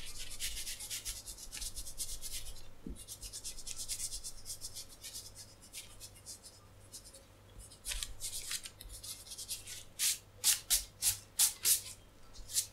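Foam eraser scrubbed back and forth over thin Japanese paper: a rapid run of soft hissing strokes for the first few seconds, a quieter pause, then about six slower, louder strokes near the end.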